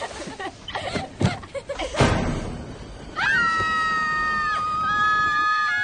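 Girls screaming in fright: long, high, held screams starting about three seconds in, with two voices at different pitches, one breaking off and another taking over. Before them, a loud crash about two seconds in.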